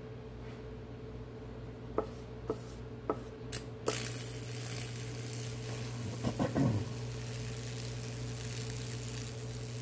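A few sharp clicks, then about four seconds in the high-voltage supply switches on: a steady electrical hum with a high sizzling hiss as current arcs across the board and burns Lichtenberg branches into the wood.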